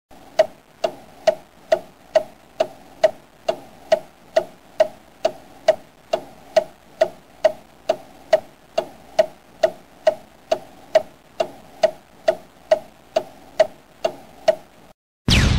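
Steady clock ticking, a little over two ticks a second. Just before the end it stops and a single loud boom rings out and fades.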